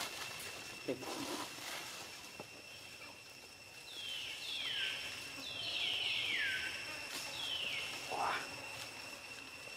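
A quick run of high, clear calls, each sliding downward in pitch, starting about four seconds in, followed by one rising call near the end, over a steady high-pitched drone in the background.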